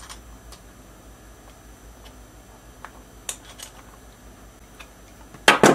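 Small metal clicks and taps of hand tools and bolt hardware being handled on a wooden workbench, scattered and light, ending in a brief louder clatter near the end.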